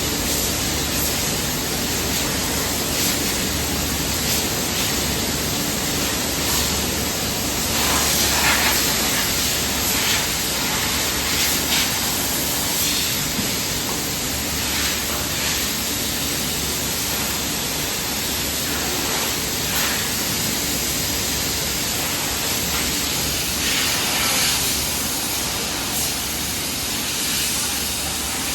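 Steady, even hiss of running machinery with a low hum underneath and a few faint knocks.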